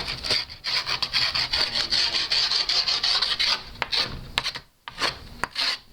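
Metal skate tool scraped rapidly back and forth along the edge of a skateboard deck's grip tape, a dense rasping that wears the grip down at the edge so it won't chip up. The scraping stops briefly a few times, longest near the end.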